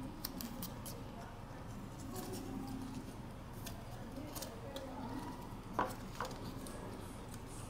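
Faint crackling and small clicks of electrical insulation tape being handled and wrapped by hand, with one sharper click about six seconds in.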